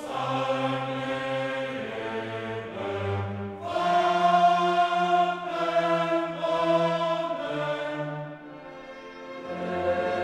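Background music: slow choral music with long held sung chords over an orchestral backing. It dips softer near the end and then swells again.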